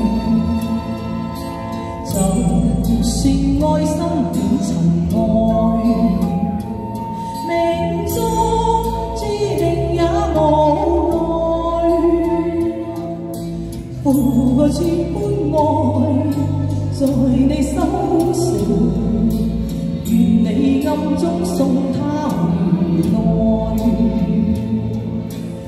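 A woman singing a Chinese pop song into a handheld microphone. Her voice is amplified through a street PA over a recorded backing track with a bass line.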